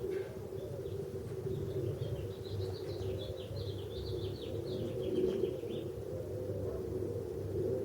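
A bird chirping in a quick run of notes for about three seconds in the middle, over a steady low hum.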